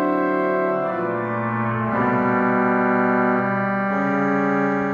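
Church organ playing slow, held chords that change to a new chord about every one to two seconds.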